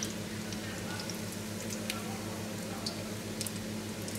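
Roscos (ring doughnuts) frying in warm olive oil in a pan: a gentle bubbling sizzle with small scattered crackles and pops, while a metal spoon turns the rings in the oil. A steady low hum runs underneath.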